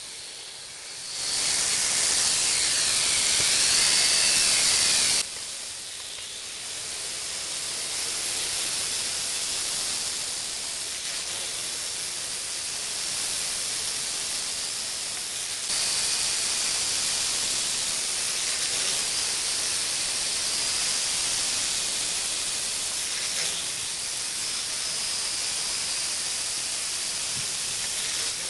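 WLtoys V929 mini quadcopter's four small coreless motors and propellers running with a high-pitched whining hiss that wavers in pitch as it manoeuvres. It is louder for a few seconds near the start, drops suddenly about five seconds in, and steps up again a little past halfway.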